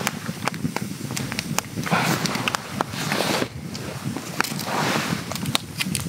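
Thin clear plastic sashimi pack crinkling and clicking as hands open its lid and handle what is inside, with a string of sharp crackles and a few longer rustles.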